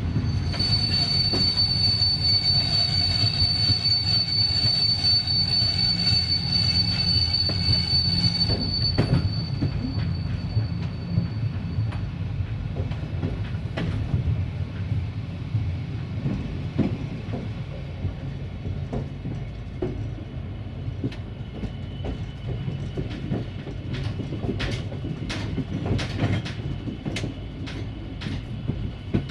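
Train wheels squealing against the rails in a high, steady tone for the first nine seconds or so, then fading away, over the continuous low rumble of the moving train. Near the end comes a run of sharp clicks from the wheels crossing rail joints.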